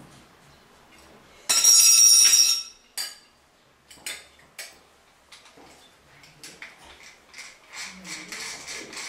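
Chrome-plated metal flush-valve pipes clinking and scraping against each other with a metallic ring for about a second, followed by scattered clicks and then a run of light metal ticks as a pipe cutter is fitted onto and worked on the chrome pipe.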